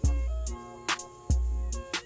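Hip hop background music: a steady beat with long booming bass-drum notes and sharp snare hits.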